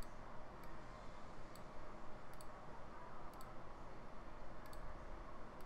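Faint, sparse clicks of a computer mouse, about one a second, over steady faint microphone hiss.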